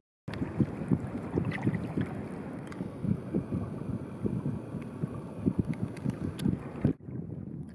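Wind buffeting the microphone in gusts: an irregular low rumble with sharp thumps. It cuts off abruptly near the end, where quieter wind follows.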